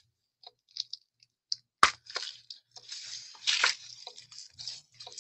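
Clear cellophane wrap on a pack of patterned paper crinkling and crackling as hands press and pull at it, with one sharp click just under two seconds in. The crinkling is densest midway.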